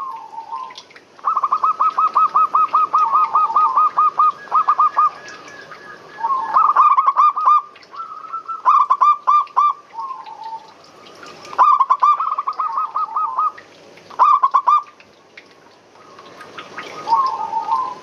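Zebra doves (perkutut) cooing: about six phrases of fast staccato notes at one pitch, several ending in a few lower rolling notes, with short pauses between them.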